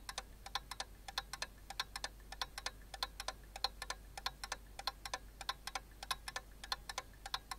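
Faint, sharp clicks at uneven intervals, roughly four to six a second, over a faint low hum.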